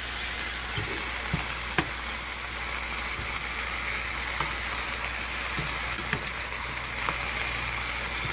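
Raw pumpkin chunks sizzling steadily in a hot soup pot as they are added and stirred, with a few light knocks against the pot scattered through.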